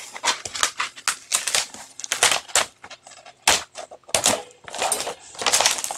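Rolled diamond painting canvas and its cover sheet crinkling and crackling as they are handled and pressed flat: a run of irregular crisp clicks and rustles.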